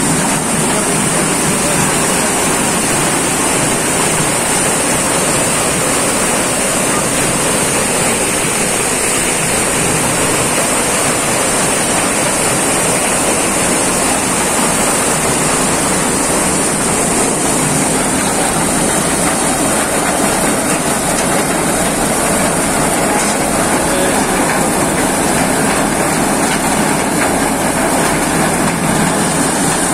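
Prabhu maize thresher running at a steady load, its elevator conveyor carrying husked corn cobs up into the threshing drum: a loud, even machine noise with a steady high hiss over it.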